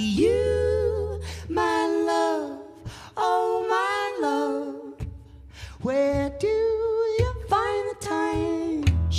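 A woman singing a slow melody of long held notes that slide from one pitch to the next, almost unaccompanied, with low bass notes under it now and then.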